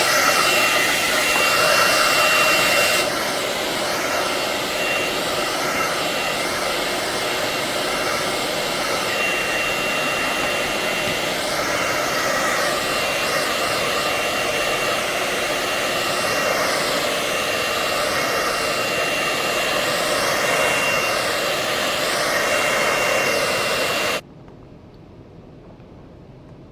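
A hot-air blower running steadily with a thin high whine over the rush of air. It stops abruptly about 24 seconds in. This is heat of the kind used to soften the adhesive holding an iPhone screen.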